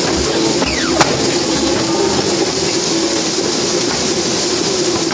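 Steady machine drone of a Polar hydraulic guillotine paper cutter running. About a second in there is a short falling sweep and then a single sharp knock.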